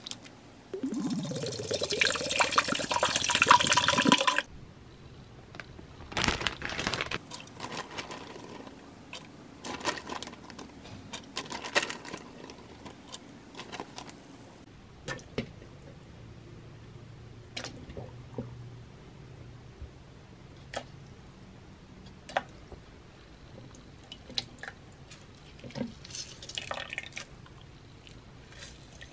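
Tap water running into a plastic blender jar in a sink for about three and a half seconds, stopping abruptly. Then scattered light taps and rustles as vegetable pieces are dropped into the jar.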